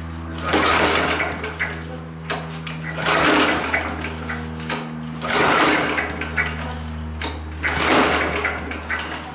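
Small lawn mower engine running after sitting out all winter, surging louder about every two and a half seconds and blowing black soot out of the muffler.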